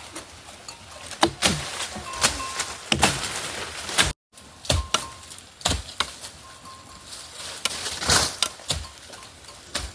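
A run of irregular knocks and thuds, some sharp, about one every half second to a second, with a brief dropout to silence about four seconds in.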